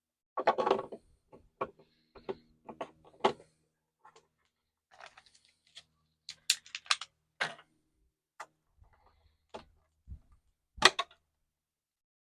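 Irregular small clicks, taps and a brief rustle of hands handling a 4257 turn-signal bulb and the Ford Maverick's taillight bulb socket during a bulb swap, the sharpest click near the end.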